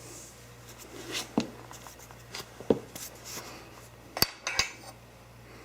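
Aluminum extrusion parts and their connector hardware being handled and adjusted: a few scattered light metallic clicks and knocks.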